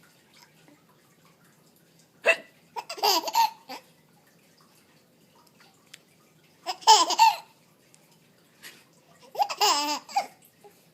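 Baby laughing in three short bouts, the first just after a short, sharp hiccup-like sound. The bouts come about two seconds in, around seven seconds, and near the end.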